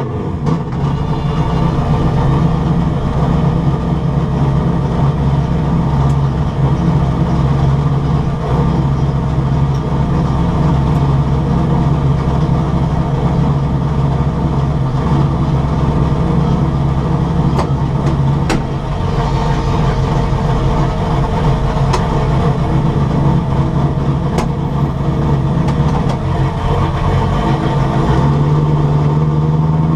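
Carbureted, rear-mount turbocharged car engine running steadily, its note shifting up a little near the end.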